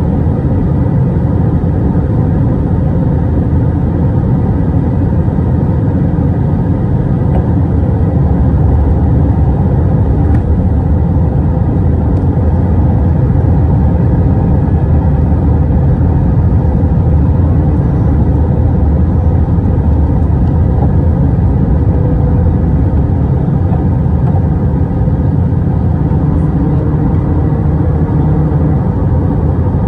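Steady low rumble inside the passenger cabin of an Airbus A320 jet, engine and air noise holding an even level.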